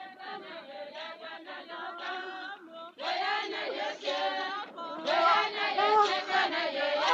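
Many voices chanting together like a choir, swelling louder about three seconds in and again about five seconds in.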